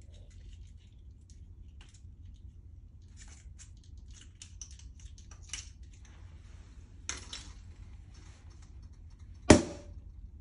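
A champagne bottle being opened: small crinkles, scratches and clicks as the foil and wire cage are worked off, then the cork pops out with one sharp, loud pop near the end.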